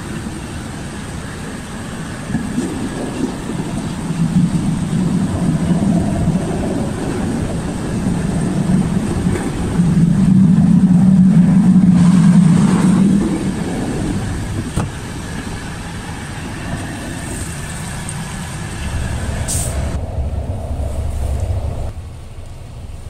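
Inside a moving Intercity passenger train: steady running rumble and rattle of the carriage, with a low hum that swells louder about ten seconds in and eases off a few seconds later, then a drop in level near the end.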